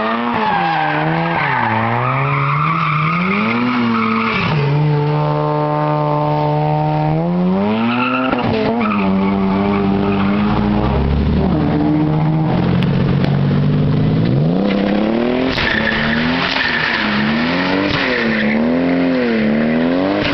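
A sports car drifting in circles: its engine revs rise and fall over and over while the tyres squeal and skid. About a quarter of the way in, the revs are held steady for a couple of seconds. The tyre squeal grows louder in the last few seconds.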